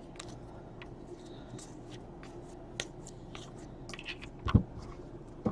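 Trading cards being handled and flipped through, light clicks and rustles of card against card, with a louder knock near the end.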